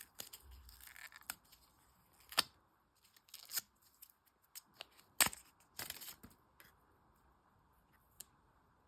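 Packaging of a GoPro action camera being opened and handled by hand: a series of irregular sharp plastic clicks and snaps with short scrapes, the loudest snap about five seconds in.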